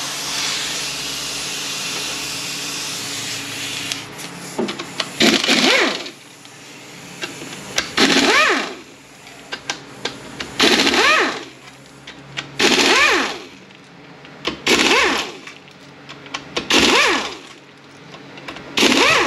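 A power tool fitted with a Torx bit runs the transmission case bolts out one after another. It runs steadily for the first few seconds, then comes in seven short bursts about two seconds apart, each a whine that rises and falls as the motor spins up and backs off.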